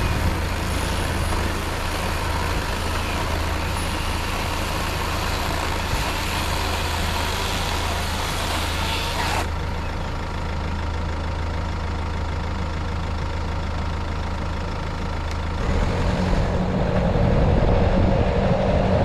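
Vehicle engine idling steadily, with a high hiss over it that cuts off suddenly about halfway through. Near the end the engine note rises and grows louder as the vehicle pulls away and drives along the dirt track.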